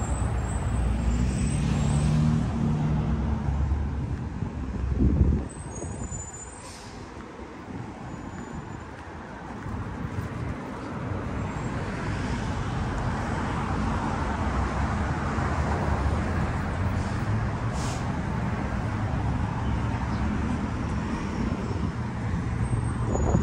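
Street traffic: a big truck's diesel engine runs close by at first, its low rumble dropping away sharply about five seconds in. After that, steady road noise as cars pass, swelling again midway.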